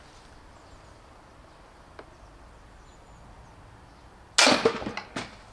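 A crossbow fired once about four seconds in: a sudden loud crack as the string is released, with the broadhead bolt striking a firewood log, followed under a second later by a second, smaller knock.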